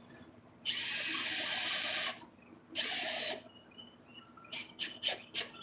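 Cordless drill driving a screw through a metal tie-down anchor plate into a wooden trailer deck, in two runs: one of about a second and a half, then a short final burst. A few light clicks follow near the end.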